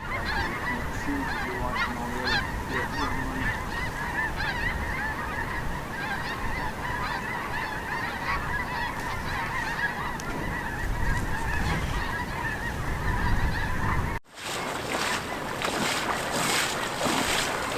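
A large flock of geese calling all at once, a dense, steady din of many overlapping honks. About 14 seconds in it cuts off abruptly to a steady hiss.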